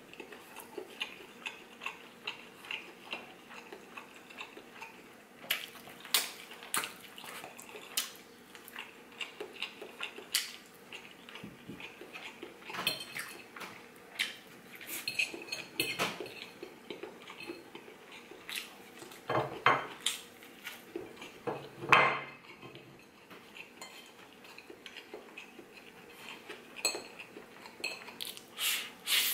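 Metal fork clinking and scraping on a ceramic plate while eating, in many short irregular knocks, the loudest about three-quarters of the way through.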